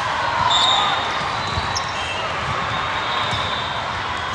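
Volleyball gym during play: a steady hubbub of many voices in a large hall, with scattered dull thumps of balls hitting hands and the court floor.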